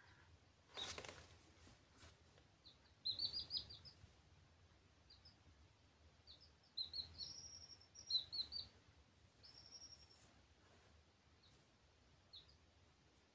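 Young domestic chicks peeping: several clusters of short, high cheeps with a few longer held peeps in between. A brief soft noise comes about a second in.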